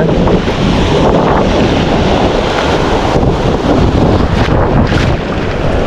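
Surf breaking and washing around a wader close to the microphone, mixed with heavy wind buffeting on the mic. A loud, steady rush with no clear pauses.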